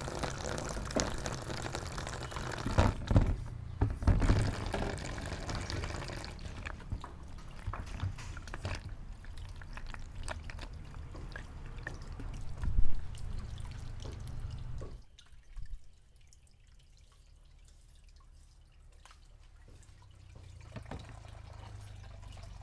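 Water pouring from a bamboo pipe into a plastic basin while cucumbers are rubbed and washed in it, with a few louder splashes. About fifteen seconds in the sound drops to a faint trickle.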